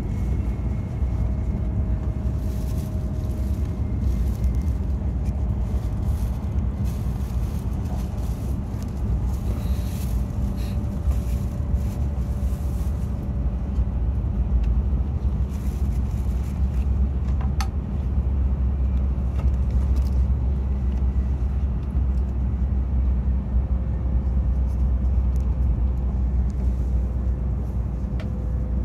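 Hokkaido Shinkansen bullet train running at speed, heard inside the passenger cabin as a steady low rumble. A faint steady tone drifts slowly lower, and there are a few light clicks.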